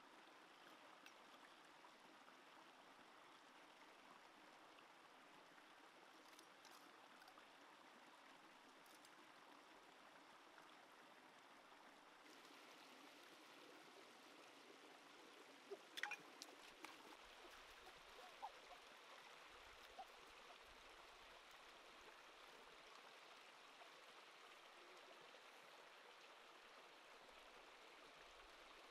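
Faint, steady running water of a shallow rocky stream flowing over stones, with a few brief knocks about halfway through.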